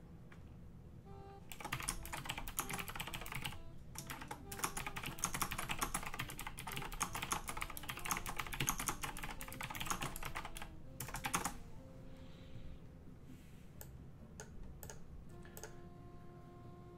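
Fast typing on a mechanical-switch computer keyboard, very noisy keystrokes in two long runs, one starting about a second and a half in and a longer one from about four to eleven seconds, then a few scattered keystrokes.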